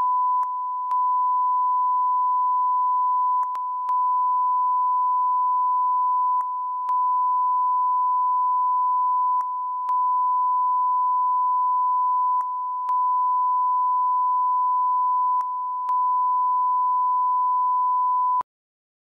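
Broadcast line-up test tone: a steady 1 kHz sine tone, briefly dropping every three seconds in the EBU stereo ident pattern, with a faint click at each break. It cuts off suddenly near the end.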